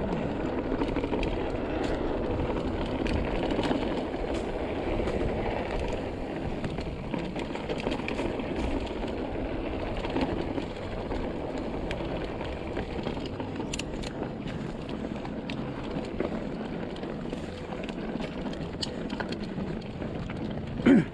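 Mountain bike rolling along a dirt singletrack: a steady rumble of knobby tyres on dirt and wind on the microphone, with scattered small clicks from the bike. A brief louder thump comes just before the end.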